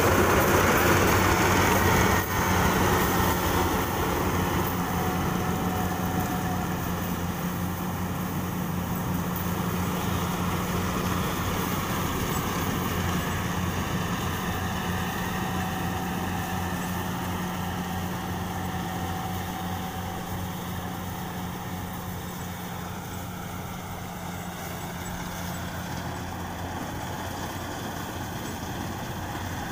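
Yanmar combine harvester's diesel engine running steadily, growing fainter as the machine moves off across the field.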